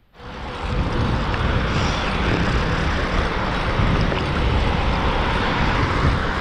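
Steady rush of wind buffeting the camera microphone as the bicycle rolls along the asphalt, with tyre noise underneath; it starts abruptly at the beginning.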